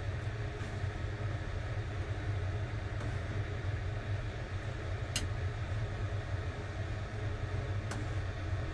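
A metal ladle scooping porridge from a saucepan, clinking lightly twice, over a steady low rumble.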